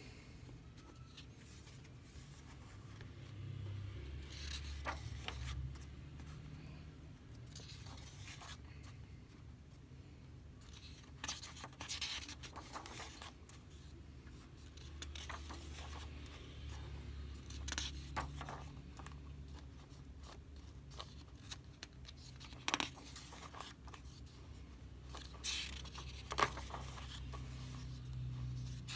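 Paper pages of a thin softcover sketchbook being turned and smoothed flat by hand: scattered short paper rustles and swishes every few seconds, over a faint low hum.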